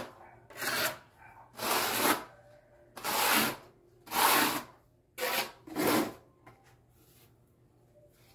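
Notched trowel scraping cement tile adhesive across the back of a ceramic wall tile: about six scraping strokes roughly a second apart, which stop a little past halfway.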